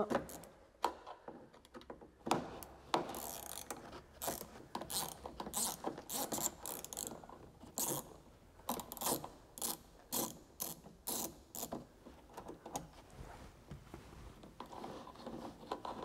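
Hand ratchet with a T20 Torx bit clicking in irregular short runs as it winds out the small screw that holds the quarter-glass channel in a car door.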